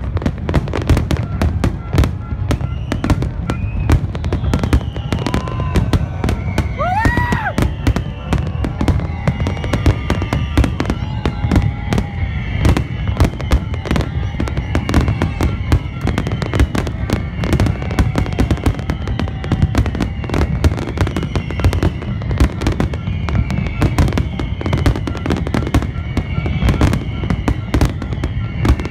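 Aerial fireworks display: a dense, unbroken run of shell bursts, sharp bangs and crackles coming several a second over a constant low rumble. A whistling tone rises and falls about seven seconds in.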